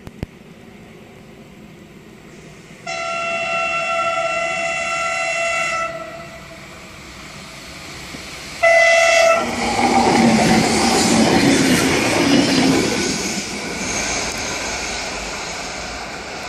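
Renfe Class 440 electric multiple unit sounding its horn, one long blast of about three seconds, then a short second blast, as it approaches. It then passes close by, the loudest part, with wheels and running gear rushing over the rails.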